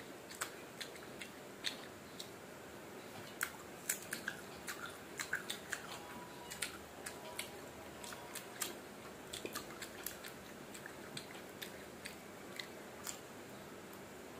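Close-up eating sounds: biting and chewing firm, unripe mango slices, a string of sharp crunchy clicks that come thickest about four to six seconds in.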